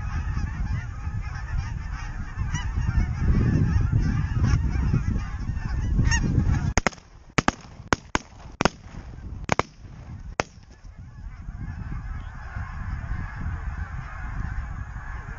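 A large flock of geese honking and calling overhead. A volley of about eight shotgun shots cracks out between roughly six and ten and a half seconds in, spaced about half a second to a second apart, and the calling carries on more faintly afterwards.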